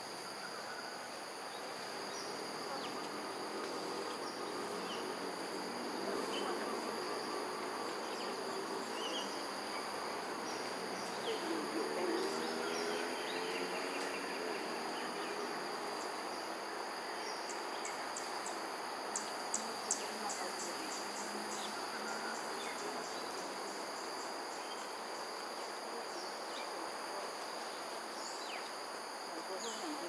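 A steady chorus of insects, several unbroken high-pitched tones, over an even background noise. A run of rapid high ticks comes about two-thirds of the way in.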